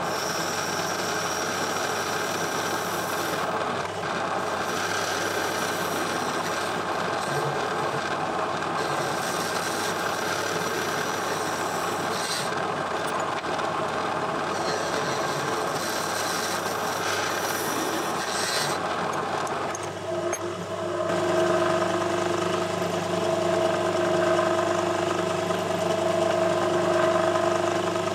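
Metal lathe running and turning down aluminium bar stock, a steady machining noise of spindle and cutting tool. About two-thirds of the way through the sound changes to a steadier hum with a high whine.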